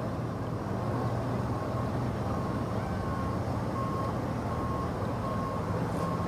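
Steady low motor drone, with a short electronic beep repeating about every three-quarters of a second from about two seconds in.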